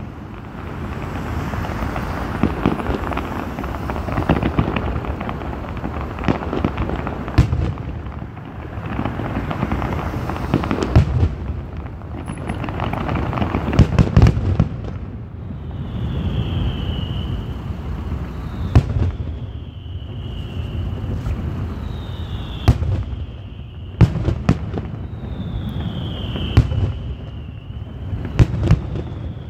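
Fireworks display: shells bursting with sharp bangs over a continuous crackle and rumble. In the second half each bang is followed by a short high tone falling in pitch, repeating about every two seconds.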